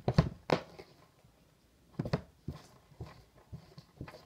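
Hands working homemade pink slime inside a clear plastic tub: irregular knocks and sticky clicks as the slime and tub are handled, with a pause of about a second near the start.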